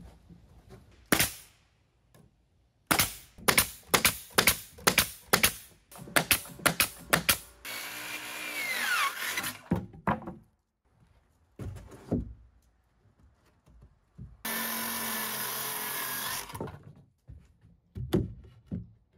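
Carpentry work on wood: a quick run of about a dozen sharp strikes, a short rasping burst of cutting noise, then a steady power-tool noise for about two seconds, with scattered knocks of boards being handled.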